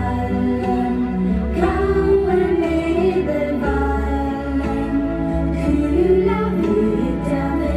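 Music played by a DJ through a sound system: a song with singing over a steady, heavy bass.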